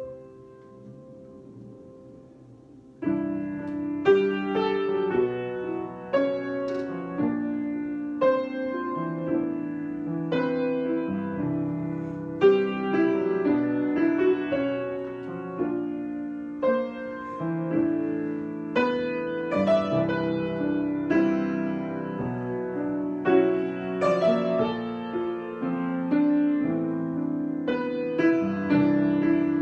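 Solo piano improvisation: a soft chord fades for the first few seconds, then about three seconds in the playing grows louder, with a melody over sustained chords in the middle register.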